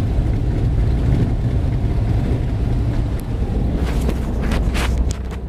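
Pickup truck driving, heard from inside the cab: a steady low rumble of the engine and tyres on a snowy road, with a few brief sharp sounds near the end.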